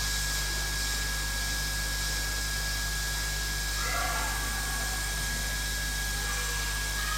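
Hot-air rework station blowing: a steady hiss of air with a constant thin high whine and a low electrical hum underneath.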